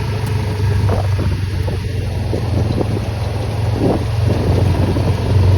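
Honda ATV engine running at a steady low drone while driving, with scattered knocks and rattles over it.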